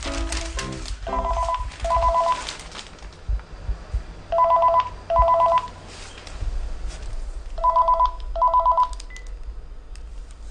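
Telephone ringing with an electronic double ring: three ring-ring pairs about three seconds apart, each ring a short steady two-note tone. Newspaper pages rustle as they are turned, mostly in the first few seconds and again near the end.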